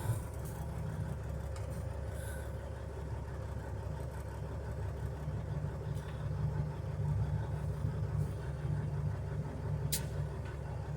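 A vehicle's engine running with a steady low drone, heard from inside the cab, with a single sharp click about ten seconds in.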